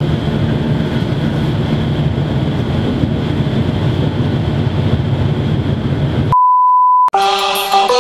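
Steady rumble of a moving train on the rails, cut off suddenly by a single steady beep lasting under a second, after which music starts near the end.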